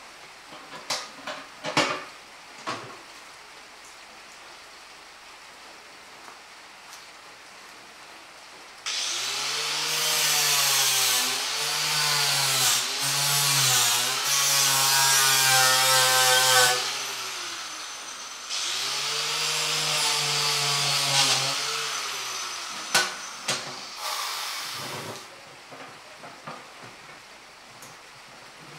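A handheld electric power tool working on a metal ammo box in two runs of several seconds each, starting about a third of the way in, its motor pitch sagging and recovering as it is pressed against the metal. A few sharp metal knocks come before and after the runs.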